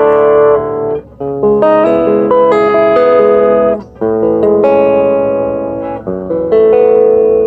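Electric guitar played through an Orange Crush Mini practice amp with its original speaker: ringing held chords and a run of changing notes, with brief breaks about one and four seconds in and a shorter one near six seconds.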